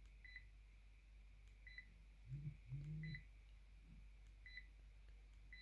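Near silence, with short, faint electronic beeps about every second and a half and a brief low murmur a little past the middle.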